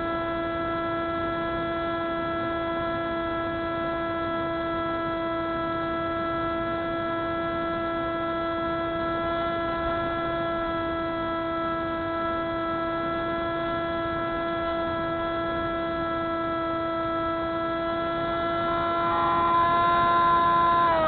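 Spyhawk FPV model plane's electric motor and propeller running at a steady pitch, getting a little louder in the last couple of seconds.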